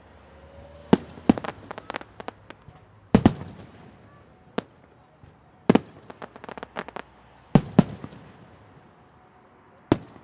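Aerial fireworks going off: about seven sharp, loud bangs a second or two apart, some followed by quick runs of crackling.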